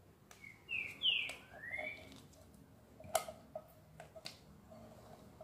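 A bird gives three short chirps about a second in. Later come a few light clicks and knocks from a silicone spatula scraping brigadeiro out of a metal pan into a glass dish.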